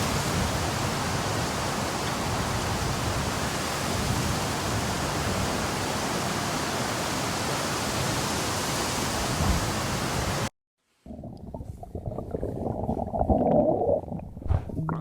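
A steady hiss fills the first ten seconds and cuts off suddenly. After a moment of silence comes a low, uneven stomach growl, gurgling and rising and falling in pitch, loudest near the end.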